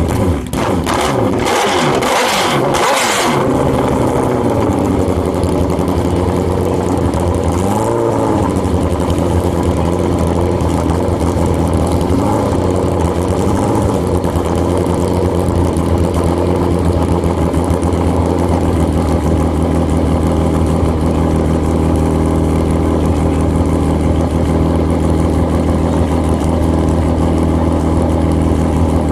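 Drag-racing motorcycle engine running at idle, steady and loud, with a few sharp throttle revs in the first three seconds and one more rev rising and falling about eight seconds in.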